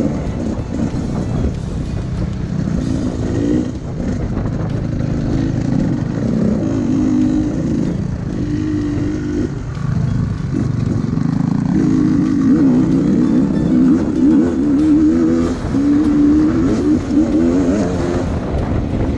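Enduro motorcycle engine revving hard, its pitch rising and falling over and over, louder in the second half.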